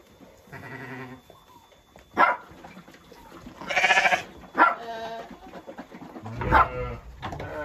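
Sheep bleating repeatedly, one call after another. The longest, loudest bleat comes about four seconds in, and there are a few short, sharp calls in between.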